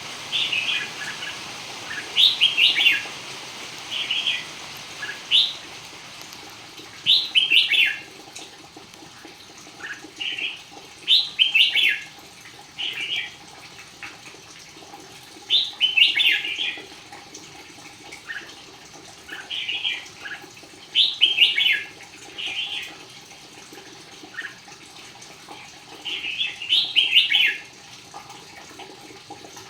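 Red-whiskered bulbul singing: short, quick, chirpy phrases repeated every one to three seconds, with a steady hiss behind.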